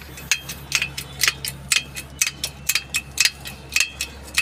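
Hydraulic bottle jack being worked by hand to raise its ram up to a truck axle: a steady run of light metallic clicks, about two a second and often in close pairs.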